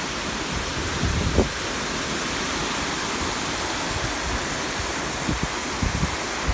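Steady rush of fountain water: jets spraying and water spilling over a pool's rim. A brief low bump comes about a second in.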